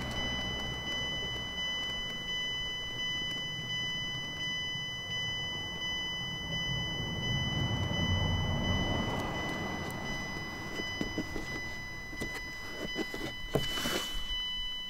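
Nissan Dayz's open-door warning chime, a steady pitched beep pulsing a little over once a second. Rubbing and handling noise swells in the middle, and a few small clicks come near the end.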